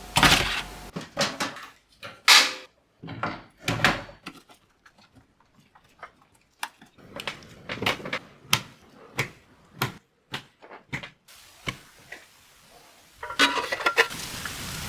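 Hands handling hardware: a run of sharp clicks and knocks, with louder rustling and scraping in the first few seconds and again near the end.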